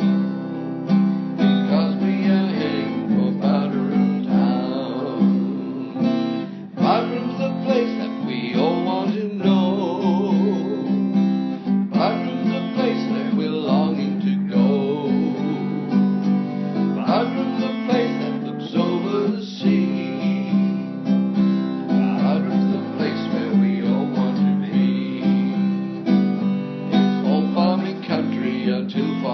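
Instrumental music: an acoustic guitar strummed in a steady rhythm, with no singing.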